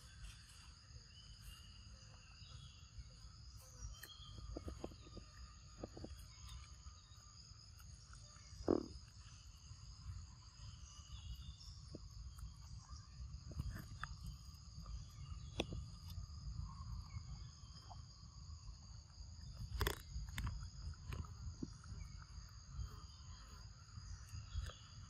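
Steady drone of insects at a few high pitches throughout, over a low rumble, with scattered soft clicks and a few louder knocks, the sharpest about twenty seconds in.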